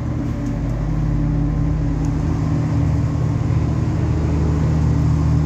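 Diesel passenger train's engine idling at the platform: a steady low hum with a constant pitch, growing slightly stronger partway through.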